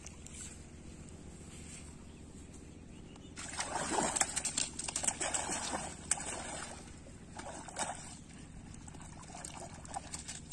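Water splashing and sloshing in irregular bursts, loudest from about three seconds in until about six seconds, with shorter splashes later.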